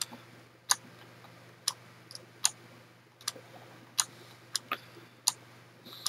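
Computer mouse clicking: about ten sharp, separate clicks at irregular intervals, some in quick pairs, over a faint steady low hum.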